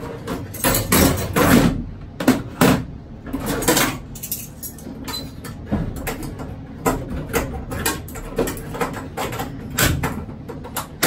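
Irregular clinks and knocks of small metal hardware being fitted by hand against an ELT mounting tray, busiest in the first few seconds and sparser after.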